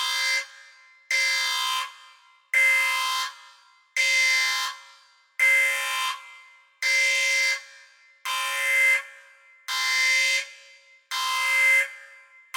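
Spaceship alarm sound effect: a steady-pitched, horn-like alarm tone sounding in evenly repeated blasts, about one every second and a half, each dying away in an echo.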